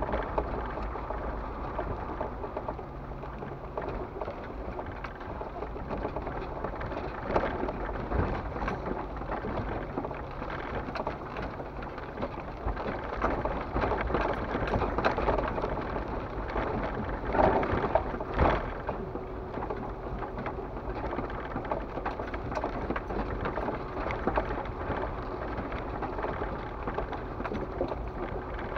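Off-road vehicle driving slowly along a rough dirt-and-gravel trail, heard from inside the cab: a low engine rumble under a steady crackle of tyres on stones and puddles, with scattered knocks from the bumpy track, the loudest a pair about two-thirds of the way through.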